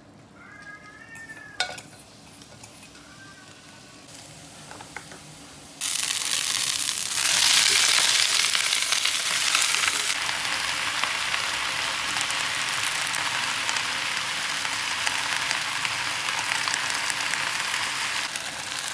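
Food hitting a hot oiled pan: a sudden loud sizzle starts about six seconds in, is loudest for a few seconds, then settles into steady frying. Before it there are only a few faint clicks and a couple of short wavering squeaks.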